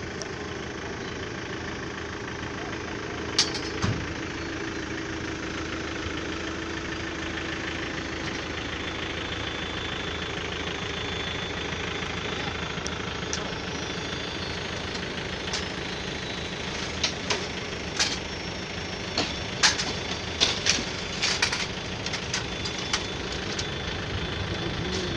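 A vehicle engine running steadily. Short sharp clicks come in scattered through the second half.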